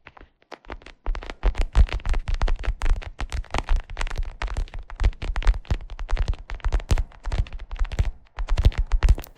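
Fingers tapping rapidly and irregularly on a leather cushion, many soft taps a second with low thuds under them, pausing briefly about half a second in and again shortly after eight seconds.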